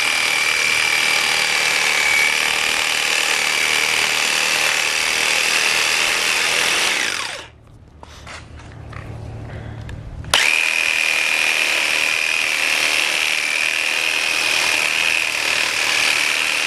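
Ryobi jigsaw sawing through a goat's horn cores at the base of the skull: a steady, high-pitched saw whine. It stops about seven seconds in and starts again about three seconds later for the second horn.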